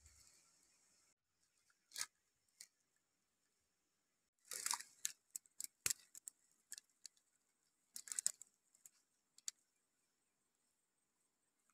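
Eggs handled and laid by hand in a shallow pit of dry soil: short, scattered clicks and rustles of eggshells, the woven bamboo basket and loose earth, with silence between.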